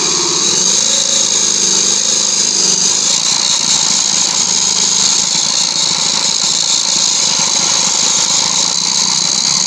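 Small 5-volt DC drive motor of a toy radio-controlled car running under load with its wheels on a board, drawing about 2 amps: a loud, steady high-pitched whir. Its pitch wavers for the first two or three seconds, then holds steady.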